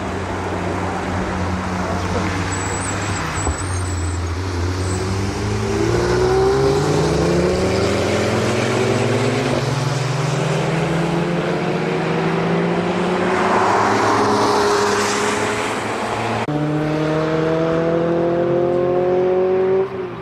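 Engines of vehicles passing on the race circuit, accelerating with their notes rising slowly over several seconds and overlapping one another, with a rush of noise as one goes by about two thirds of the way in and a fresh rising engine note after a sudden change near the end.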